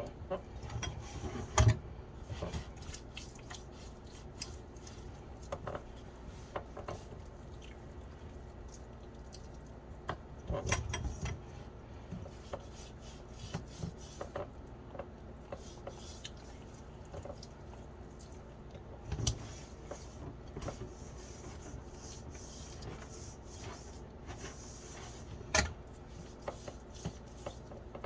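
Kitchen handling sounds: scattered light clicks and taps of containers and utensils on a counter, with a few louder knocks spread through.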